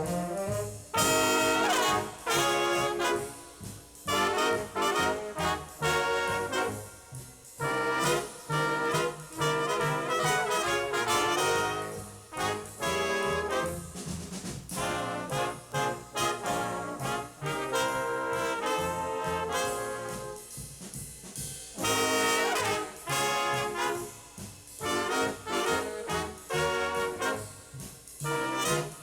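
Junior high school stage band (big-band jazz ensemble) playing, with trumpets and trombones to the fore in loud ensemble passages broken by short drops every few seconds.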